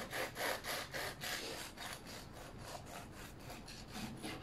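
A knife sawing back and forth through a baked wholemeal loaf, in quick scraping strokes about three a second. The strokes ease off about halfway through and pick up again near the end.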